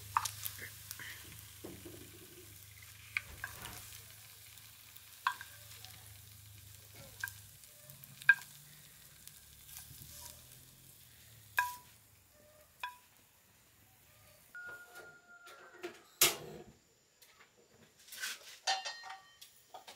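Food sizzling in a frying pan while being stirred, a metal utensil clinking against the pan every second or two. The sizzle dies down about twelve seconds in, and a few louder clatters of cookware follow near the end.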